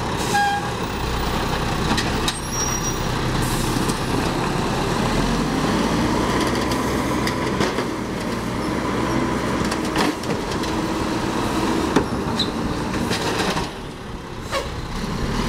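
Mack LE refuse truck's engine running steadily while its Amrep automated side-loader arm lifts a recycling cart, dumps it into the hopper and lowers it back to the curb. A few sharp knocks from the cart and arm are heard along the way.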